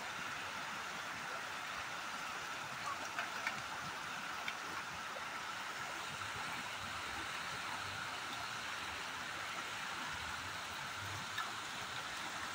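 Steady rush of flowing river water, with a few faint clicks about three and four and a half seconds in.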